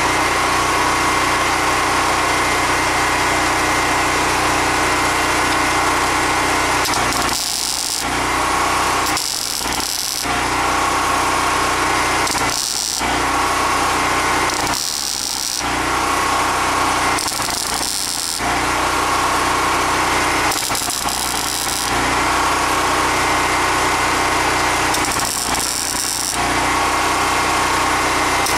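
MIG welder arc crackling steadily while the new steel rocker panel is tack- and plug-welded to the Datsun 1600's body seam, broken by several short pauses between welds.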